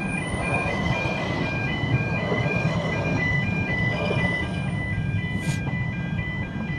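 A level crossing's audible alarm sounds a rapid, even two-tone warning as the last carriages of a narrow-gauge Welsh Highland Railway train rumble across the road.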